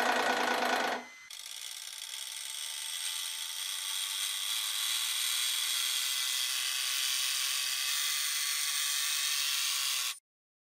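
Hydraulic press running under load as its ram squeezes a metal piece: a steady mechanical whine and hiss that builds slowly. It changes abruptly about a second in and cuts off suddenly near the end.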